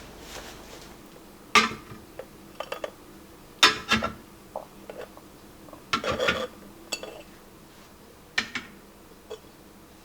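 Kitchenware being handled on a counter: a handful of sharp clinks and clatters, spaced irregularly, as containers and cookware are set down and moved.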